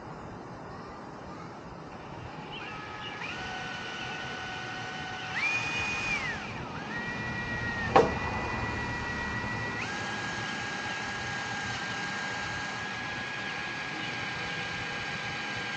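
Power drill running, its whine stepping up and down in pitch as the trigger is worked, then holding one steady pitch for the last several seconds. One sharp click about eight seconds in.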